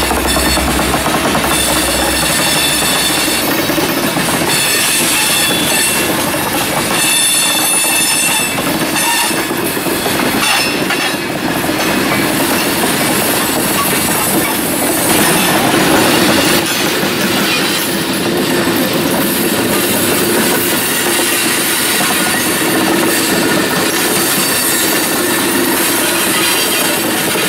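Freight train of tank cars rolling past, a steady loud rumble and rattle of wheels on rail. High-pitched wheel squeal rings over it for the first several seconds, then fades.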